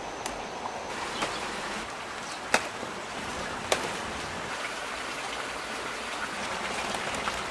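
Steady rain hiss, with a few sharp taps standing out over it, the loudest about two and a half seconds in.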